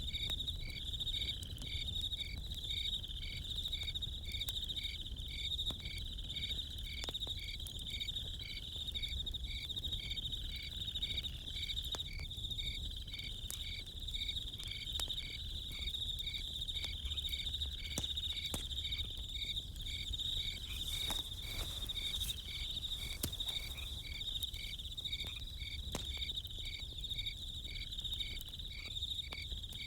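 Crickets chirping steadily, one high continuous trill with another pulsing about twice a second. Faint scattered crackles from a campfire and a low rumble lie under them.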